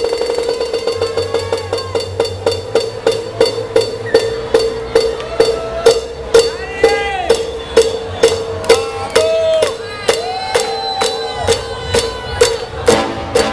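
Electronic dance music from a DJ set, played loud through a club sound system. A steady kick drum runs at about two beats a second under a held synth tone, with short rising-and-falling synth glides over it. A fuller bass comes back in near the end.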